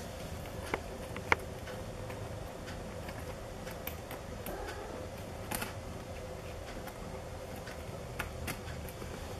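Steady low room hum with scattered small clicks and ticks, the sharpest about a second in and a cluster near the end.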